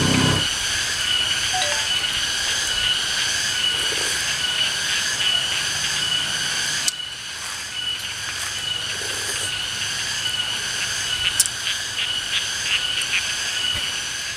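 Forest ambience: a dense chorus of calling animals, with a steady high-pitched drone and rows of pulsing calls above it. The sound changes abruptly about seven seconds in, and a few sharp clicks come near the end.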